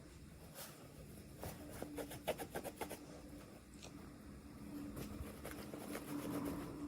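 Faint handling noises of a toy unboxing: scattered small clicks and short rustles of plastic packaging and miniature toy parts being handled, with a cluster of clicks about two to three seconds in, over a low steady hum.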